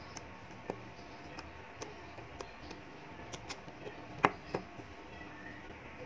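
Small magnetic balls clicking against each other as they are pressed and snapped into place: a scattered series of short, sharp clicks, the loudest about four seconds in.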